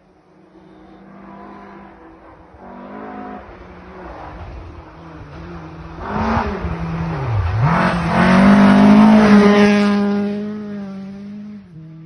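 Rally car approaching at speed with its engine revving hard. About seven seconds in the revs drop sharply and climb again. It passes at its loudest around nine seconds in and fades as it goes away.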